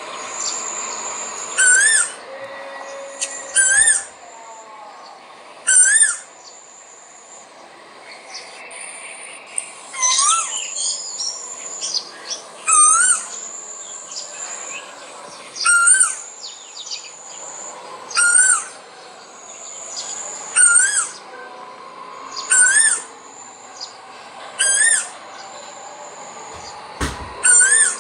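Male koel calling over and over: a short rising call, roughly every two to three seconds, about eleven times. Other birds' thin, high calls go on steadily behind it.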